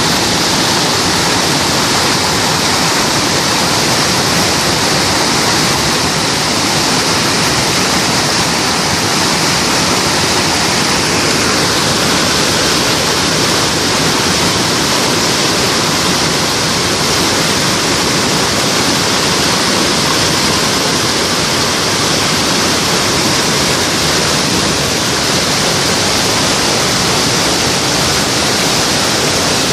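Waterfall: falling water making a loud, steady, even rush with no change throughout.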